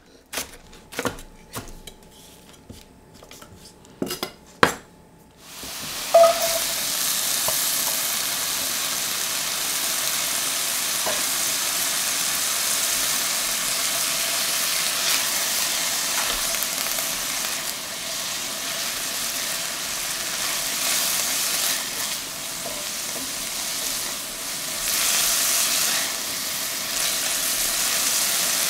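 A knife chops spring onions on a wooden cutting board, a run of sharp knocks. About five seconds in, hot fat in a pan starts sizzling loudly and steadily as the chopped spring onions are fried and stirred with a spatula.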